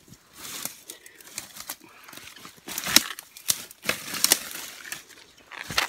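Irregular rustling and crackling of dry leaves, twigs and bamboo as someone pushes through thick undergrowth, with the loudest crackles about three and four seconds in.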